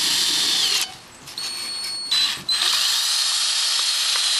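Electric drill running at high speed, its bit boring through thin copper sheet into a wooden block beneath, with a high whine. The drill stops about a second in, restarts quietly, and runs steadily again from about halfway.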